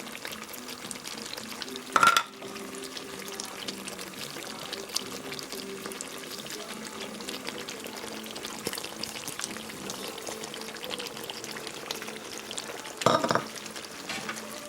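Chicken pieces in ghee masala sizzling and crackling in the pan after curry leaves and coriander are added, with two louder short bursts of sizzle or stirring about two seconds in and near the end.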